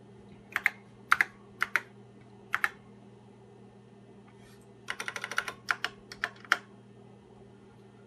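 Typing on an Apple II keyboard: a few separate keystrokes about half a second apart, then a quick run of key clicks about five seconds in, followed by a few more single strokes.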